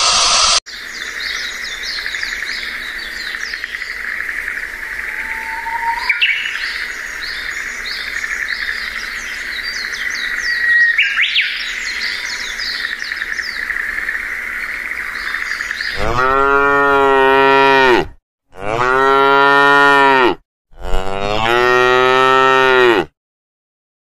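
A steady, high chorus of calling insects with a couple of short rising whistles. About two-thirds of the way in, it gives way to three long, low moos of about two seconds each, from a cow-like grazing animal, each dropping in pitch at its end.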